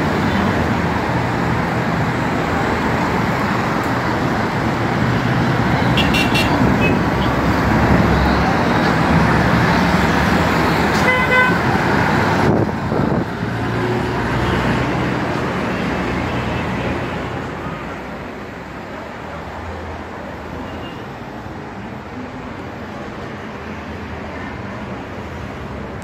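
Traffic on a busy road: a steady wash of passing cars, with car horns sounding briefly twice in the first half. An abrupt break about halfway through, after which the traffic goes on more quietly.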